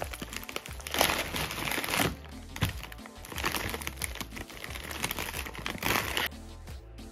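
Plastic packaging bags of frozen pastries crinkling and crackling as they are handled and turned over, in bursts that stop suddenly about six seconds in. Background music plays underneath.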